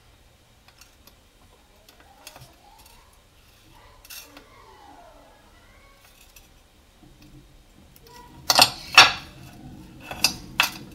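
Jewellery pliers, jump ring and metal chain clicking and clinking softly as a jump ring is closed. Louder clacks and clinks come near the end, about eight and nine seconds in and again just before the end, as the pliers and the necklace pieces are handled and put down on the board.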